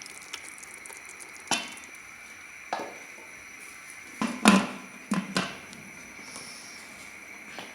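Metal clanks of a pressure cooker and its lid being handled and set in place: a handful of separate knocks, the loudest about four and a half seconds in.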